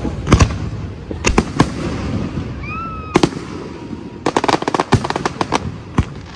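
Aerial fireworks: single sharp reports of shells bursting in the first few seconds, then a quick string of crackling pops about four seconds in, and one last report near the end.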